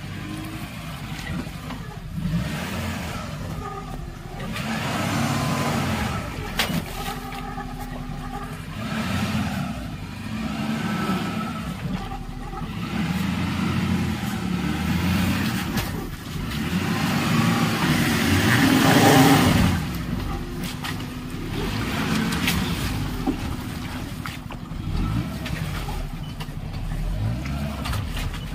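Maruti Gypsy's petrol engine revving up and falling back in repeated surges as the 4x4 crawls under load over boulders in a shallow rocky stream, loudest about two-thirds of the way through.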